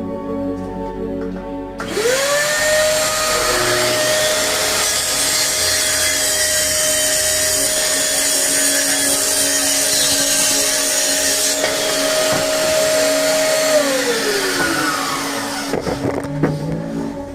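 An electric woodworking power tool starts about two seconds in, its motor whining up quickly to a steady pitch with a loud hiss as it works through wood. The hiss stops sharply at about twelve seconds, and the motor runs on briefly before winding down with a falling pitch.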